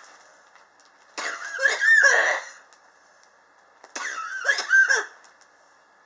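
A person coughing in two harsh fits, each a little over a second long, with a high, wavering, squeaky pitch: a chronic cough that has gone on for years.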